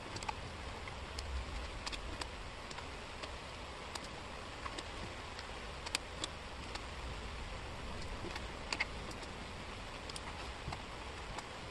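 Small wooden jigsaw puzzle pieces clicking against each other and the table as hands sort and slide them. The light clicks come irregularly, a few a second, over a low steady hum.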